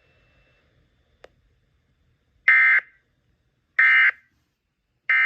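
Emergency Alert System end-of-message data tones: three short, loud bursts of digital squawk about a second and a quarter apart, signalling the end of the alert.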